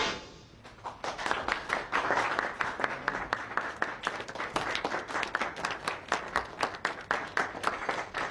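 A brief loud burst right at the start, then from about a second in a small audience clapping and applauding, with individual sharp claps standing out over the general patter.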